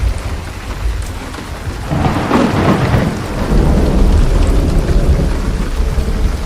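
Steady heavy rain with a thunderclap: a crackling peal about two seconds in that rolls on into a long, deep rumble.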